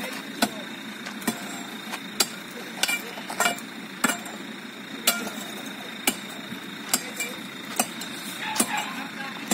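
A long steel bar being driven into the base of a plastered brick wall, about a dozen sharp blows at roughly one a second, knocking brick and mortar loose as the wall is demolished.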